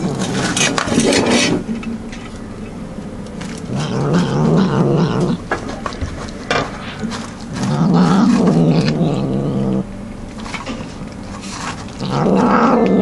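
Domestic cat growling over its food while eating from a tin: four drawn-out, low growls, roughly one every four seconds, with clicks of eating between them.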